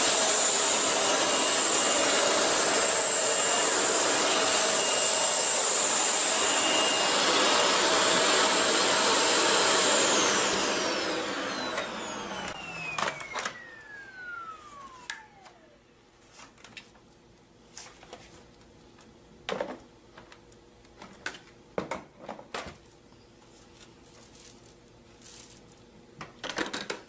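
Shark NV501 Rotator upright vacuum cleaner's motor running steadily with a high whine, then switched off about ten seconds in, its pitch falling as the motor spins down over a few seconds. After that come only a few scattered clicks and knocks.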